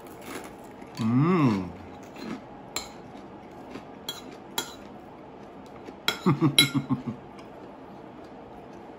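A person eating and humming with approval through a closed mouth: a loud "mmm" that rises then falls about a second in, and a quick run of pulsed "mm-mm-mm" hums a little after six seconds. A few scattered sharp clicks and crunches of eating come between them.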